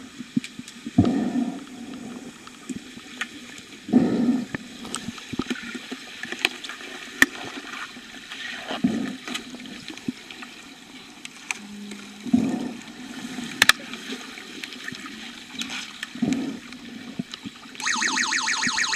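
Muffled underwater sound of an underwater hockey game heard through a submerged camera: rushing water and bubbles swelling as players dive past, with scattered sharp clicks and knocks from sticks, puck and the pool floor. Near the end a loud, fast-pulsing buzzer tone starts, the underwater sounder used to signal a stoppage of play.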